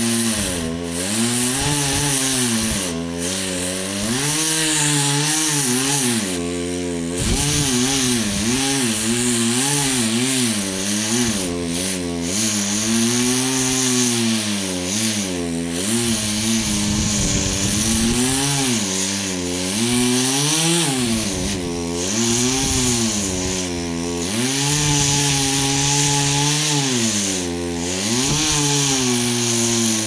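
Chainsaw running as it cuts wood, the engine revving up and dropping back over and over, its pitch rising and falling every second or two, with a few longer stretches held at high speed.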